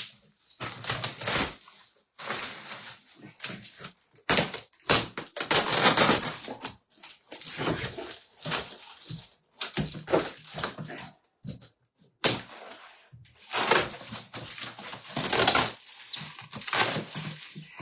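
Cardboard box and packing tape being cut and torn open, with scraping, ripping and rustling that come in irregular bursts.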